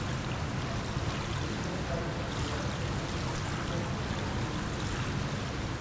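Water sloshing and lapping as two people swim in an indoor pool, with a steady low rumble underneath.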